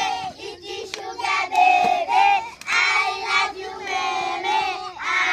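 Children's voices singing together, several at once, with long held notes.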